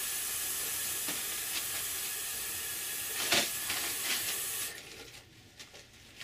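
Tap water running steadily into a sink, with a brief loud rustle of paper towel as hands are dried. About three-quarters of the way through, the faucet is shut off and the hiss of water stops suddenly.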